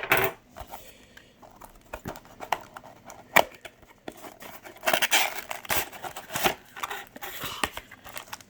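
A cardboard Beyblade retail box being opened by hand: sharp clicks and tearing of the cardboard, with stretches of rustling and crinkling in the second half as the contents come out.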